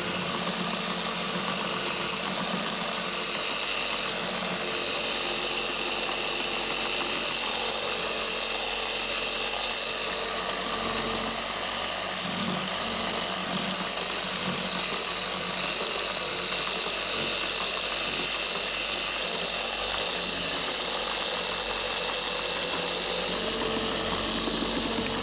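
Electric angle polisher running steadily with its pad pressed on a car's painted panel: a constant motor whine mixed with the whirr of the pad on the paint.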